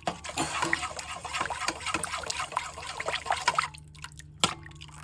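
Coconut-milk seafood broth bubbling in a pot as it heats toward a boil, a dense crackle of small pops that drops away after about three and a half seconds, leaving a faint low hum and a single click.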